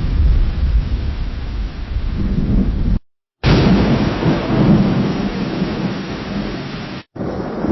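Rolling thunder rumbles low and stops abruptly about three seconds in. After a short silence, a sharp lightning crack opens a new clap of thunder that rolls on as a deep rumble, broken by a brief dropout near the end.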